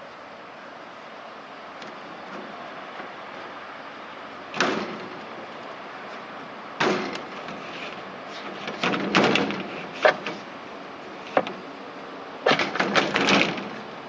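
Sharp knocks and rattling scrapes in separate bursts, with a dense cluster near the end, as a deck roof panel is worked back into its frame.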